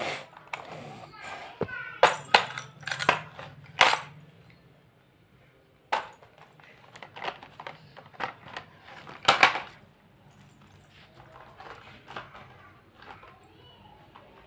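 A toddler's toys knocked and clattered about: a run of sharp knocks and clicks, densest two to four seconds in and again around nine seconds, with faint voices between them.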